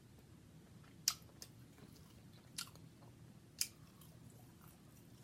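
Close-up chewing of food, quiet and wet, with a few sharp mouth clicks: the first about a second in, another about a second and a half later, and a third a second after that.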